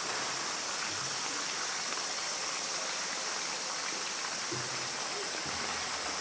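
Steady rushing of running water, an even hiss with much of it high-pitched, unchanging throughout.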